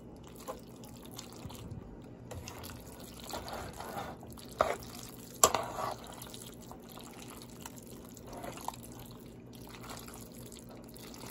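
Metal tongs tossing and lifting fettuccine in thick, creamy Alfredo sauce in a pan: soft, wet, sticky sounds of coated noodles, with a couple of sharper clicks about halfway through.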